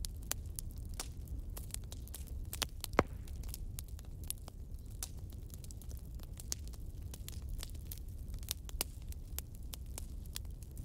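Campfire crackling and popping in irregular sharp snaps over a steady low rumble of burning wood, with one loud pop about three seconds in.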